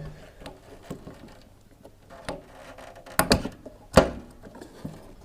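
Scattered clicks and knocks of the tumble dryer's drive belt, motor and tension pulley being handled as the belt is worked onto the pulley, with a few sharper knocks a little after three seconds and at about four seconds.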